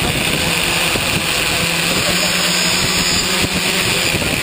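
A tricopter's electric motors and propellers running steadily at close range, a loud, even whirr with a faint low hum, dropping away right at the end.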